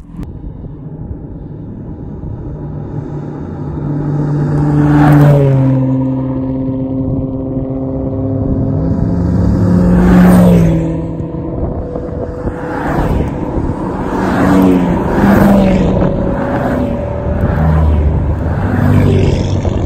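Cars driving past one after another, each engine swelling in loudness and then dropping in pitch as it goes by. The two loudest passes come about five and ten seconds in, followed by several shorter ones.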